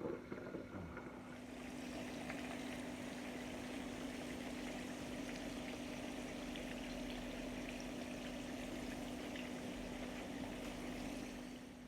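Chicken tenders deep-frying in hot oil: a steady bubbling sizzle, with a steady low hum underneath that eases off near the end.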